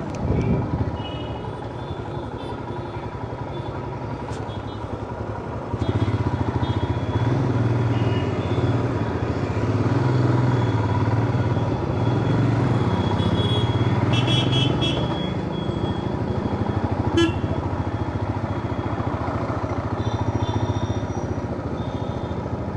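Motorcycle running along the road, its engine growing louder about six seconds in, with several short horn toots from traffic.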